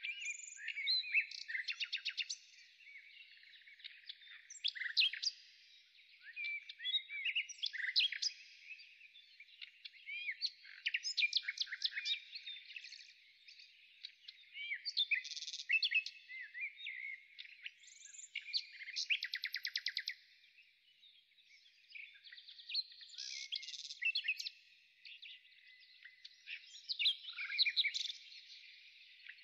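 Small birds chirping and twittering in a continuous run of short high calls, with several fast trills in between.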